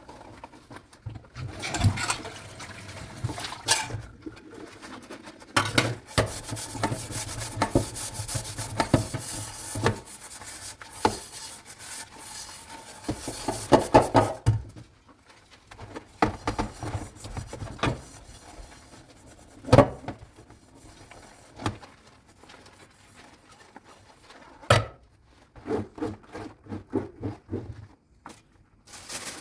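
Dishes being washed by hand: scrubbing and rubbing with irregular knocks and clinks of dishware. About six seconds in there is a rush of water lasting a few seconds, and a busy bout of clattering comes around the middle.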